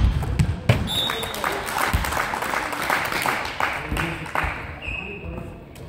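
Hand clapping with some voices, echoing in a large sports hall. It opens with two sharp thuds of a volleyball being hit, the first right at the start and the second just under a second in. The clapping thins out in the last second or so.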